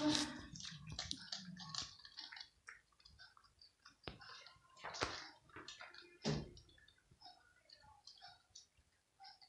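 A cat crunching dry kibble: irregular crisp crunches, dense at first and sparser later, with a couple of louder ones past the middle.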